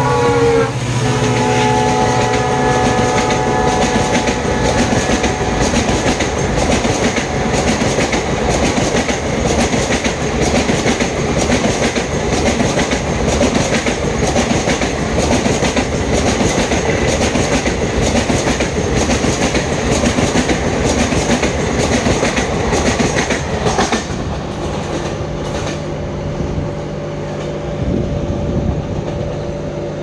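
Diesel locomotive horn of the Ranikhet Express dropping in pitch as the engine passes and ending about two seconds in, then the express's coaches rushing past at speed on the adjacent track with a fast, continuous clickety-clack of wheels over rail joints. The clatter stops suddenly near the end, leaving a quieter steady hum.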